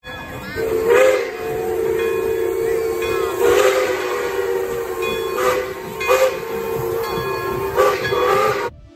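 Steam locomotive's whistle blowing one long, steady chord, starting about half a second in and cut off just before the end, with several short bursts of steam hiss over it.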